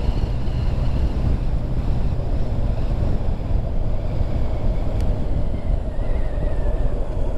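Heavy wind buffeting on the microphone over a sport motorcycle's engine running at road speed, easing off as the bike slows.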